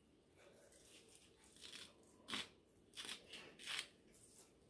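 Salt grinder being twisted over a bowl, grinding coarse salt: a few faint crunching strokes in the second half.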